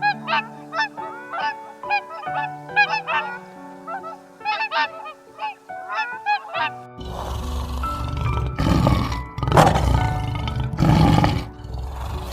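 Short, repeated honking calls of birds over background music; about seven seconds in they give way to a series of loud, rough roars from a large animal.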